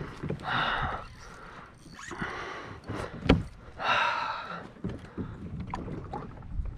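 Water swishing around a kayak in three regular strokes about a second and a half apart, with a single sharp knock on the hull a little over three seconds in.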